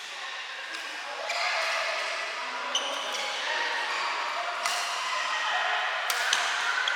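Badminton play: several sharp racket strikes on the shuttlecock and a brief squeak or ping, over a steady hiss of rain on the roof.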